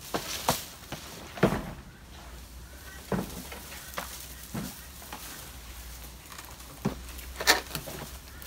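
Dry palm fronds and branches rustling and crackling as they are pulled and dragged by hand, with scattered sharp snaps at irregular intervals.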